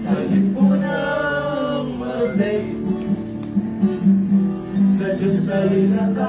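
A small group of men singing a hymn together with guitar accompaniment: the opening song of a church service.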